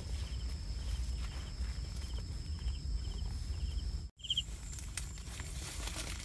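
Wind rumbling on the microphone in an open field, with a faint high chirp repeating about every half second and a thin steady high tone behind it. After a cut about four seconds in, scattered clicks and rustling of plant stalks handled up close.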